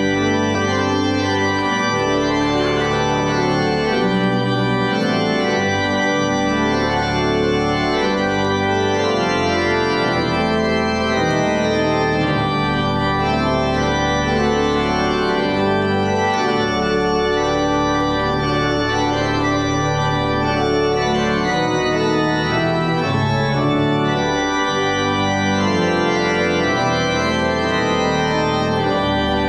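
Church organ playing loud, full sustained chords that change from one block to the next. It comes in abruptly with full sound at the start.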